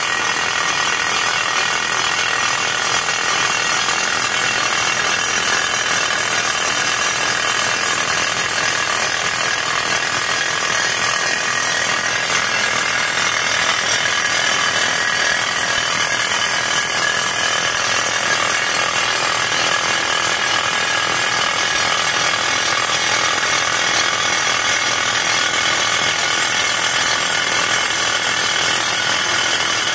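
Furukawa PCR 200 rock drill hammering into rock: a fast, steady chatter of blows from the drill steel.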